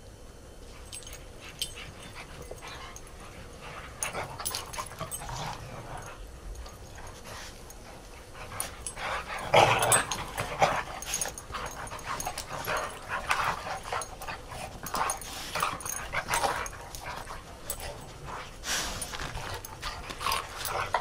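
Dogs playing rough in snow, giving short, irregular dog noises; the loudest comes about ten seconds in.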